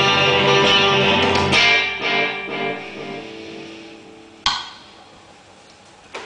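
1965 Fender Stratocaster electric guitar ringing a sustained chord, struck again about a second and a half in, then left to fade out over the next couple of seconds. A sharp click comes about halfway through and a smaller one near the end.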